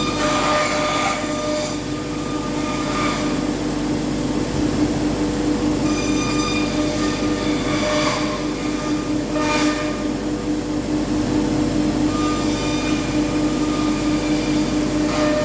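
CNC router spindle running with a steady whine while the cutter mills a balsa wood sheet. Short flares of cutting noise come about a second in, around three seconds, near eight and nine and a half seconds, and at the end.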